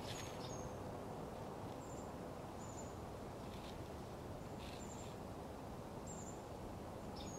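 Short high-pitched bird chirps, one every second or so, over a steady low background noise outdoors.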